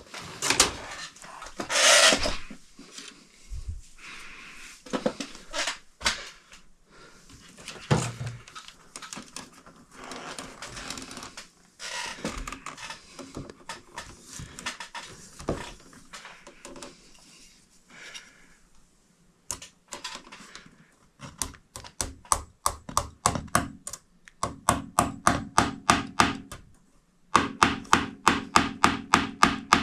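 Hand-tool work: scattered knocks and clatter of handled parts, then about two thirds of the way in three runs of quick, even tapping, about four or five strokes a second.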